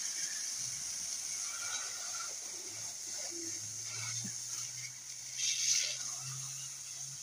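Pressurised gravity-fed water hissing and spraying from the uncapped end of a black plastic water pipe as two men hold it back by hand, with a louder spurt about five and a half seconds in.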